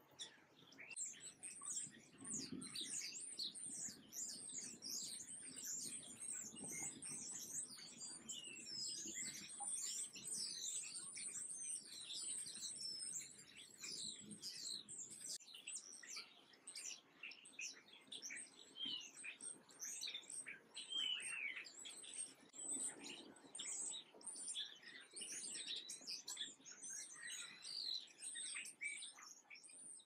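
Small songbirds chirping and twittering continuously, many short high-pitched calls overlapping one another.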